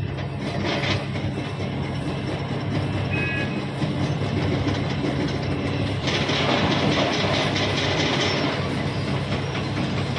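Hitachi Zaxis 470 excavator's diesel engine running steadily, with a clatter of rock and dirt pouring from its bucket into a dump truck's steel body from about six seconds in.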